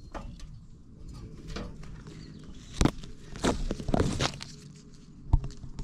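Irregular knocks and crunching scrapes. The loudest cluster comes about three to four and a half seconds in, with one sharp knock near the end.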